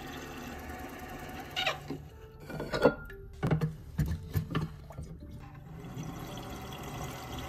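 Several sharp clicks and knocks from about one and a half to five seconds in, over a steady low hum that drops out while they sound.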